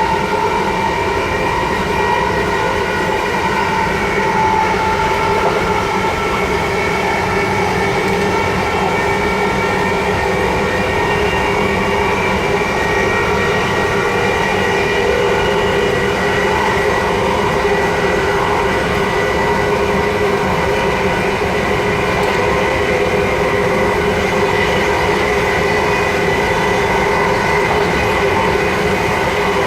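Class 357 Electrostar electric multiple unit running steadily, heard from between the carriages: an even whine of several tones from the traction equipment over a loud, steady rumble of wheels on rail.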